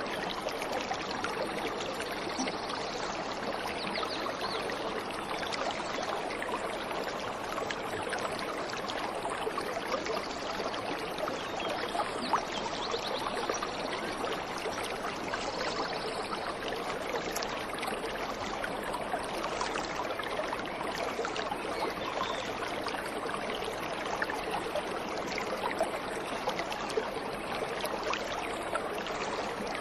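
Waterfall water rushing and splashing steadily, an even unbroken flow.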